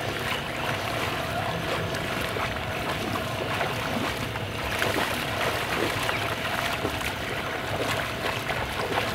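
Two people wading through shallow water in a flooded field, their legs splashing with each stride.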